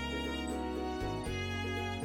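Acoustic instrumental background music: sustained pitched notes with new notes entering every half second or so.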